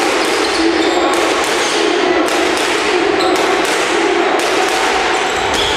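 Live basketball game sounds in a gym: a basketball bouncing and thudding on the wooden court amid a steady din of players' and bench voices, with scattered sharp knocks.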